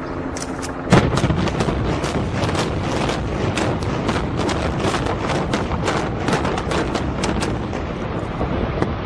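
Building implosion: a rapid series of sharp cracks from demolition charges firing in sequence, the loudest about a second in, over a continuous low rumble as the building collapses.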